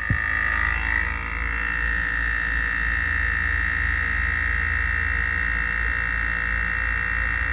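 Range Rover L322 Hitachi air suspension compressor switching on and running continuously: a steady high whine over a low pulsing hum. It keeps running without managing to raise the vehicle, the 'vehicle lifting slowly' suspension fault.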